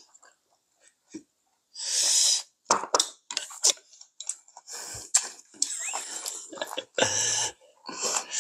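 Close-up eating sounds from two people at a table: chewing and slurping, with light clicks of chopsticks and spoons on bowls and a run of short hissy breaths or slurps, the loudest about two seconds in.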